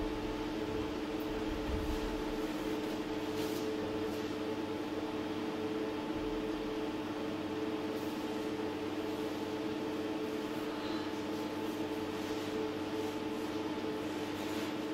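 A steady hum of two or three held low tones that do not change, with a few faint taps.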